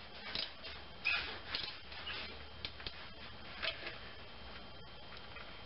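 Scattered light clicks and ticks, irregularly spaced, as a GM Ecotec four-cylinder engine with its spark plugs out is turned slowly over by hand.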